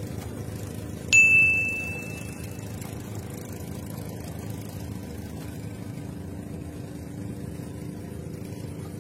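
A single bright bell-like ding about a second in, ringing out and fading over about a second and a half, over a steady low engine hum.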